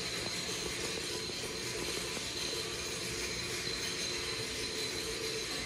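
Steady mechanical hum and hiss with a thin, constant high whine, unchanging throughout.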